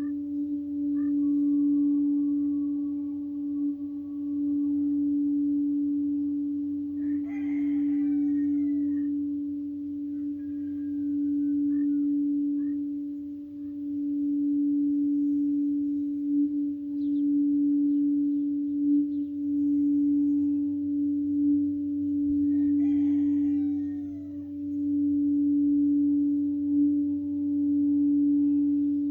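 A sound healing bowl played by circling its rim, holding one unbroken humming tone that swells and fades in slow waves. Twice a bird calls faintly behind it.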